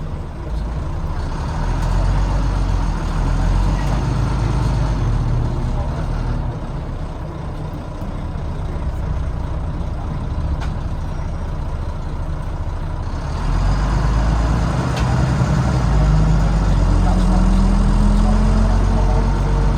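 Volvo B9TL double-decker bus's D9B diesel engine heard from the back seat, working hard, easing off through the middle, then pulling harder again in the last third. As it accelerates, a rising whine climbs in pitch near the end; the uploader can't place this noise and wonders whether it is the gearbox, the cooling fan or the axles.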